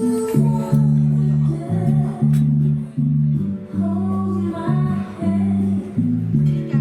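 Music for a stage dance show, with a prominent bass line changing note every half second or so, guitar and some singing.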